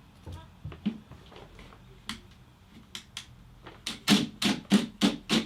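Scattered light clicks and taps, then five sharp knocks in quick succession, about three a second, near the end.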